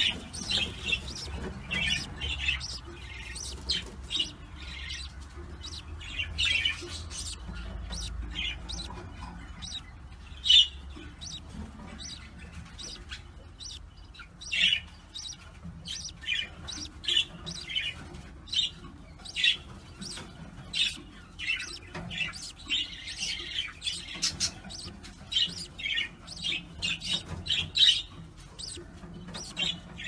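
Budgerigars chirping and chattering: a continuous run of short, quick, irregular chirps, over a low rumble.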